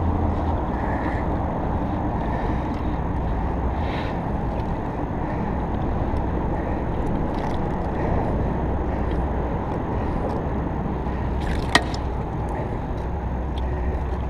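Steady low rumbling background noise, with a single sharp click near the end.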